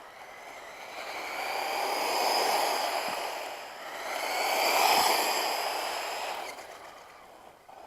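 Battery-powered RC car's electric motor whining with a hiss of its tyres as it is driven at about half throttle, swelling and fading twice with the pitch rising and falling.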